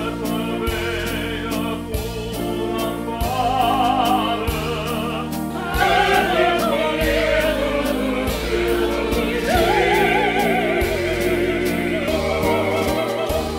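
Operatic singing with vibrato over sustained accompaniment chords. A single male voice leads at first, and the full group of male and female opera singers joins in about six seconds in, louder and fuller.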